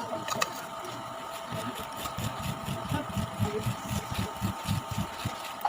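A person chewing raw jicama close to the microphone: a quick run of soft chomps, about four a second, from about a second and a half in until near the end, over a steady electrical hum.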